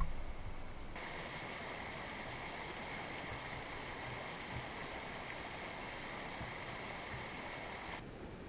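Mountain creek running over rocks: a steady rush of water, brighter from about a second in until near the end.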